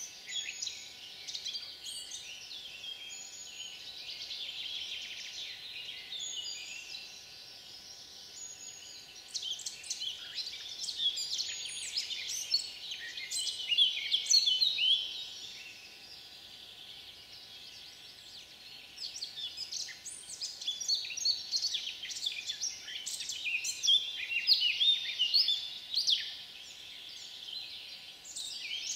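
A chorus of many songbirds singing at once, with overlapping chirps, whistles and trills; it swells louder in two busy stretches.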